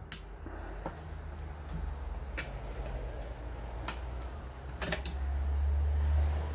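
Hard clicks and taps of tools and fan parts being handled during teardown of a vintage electric fan, about five scattered clicks with two in quick succession near the end, over a low rumble that grows louder in the second half.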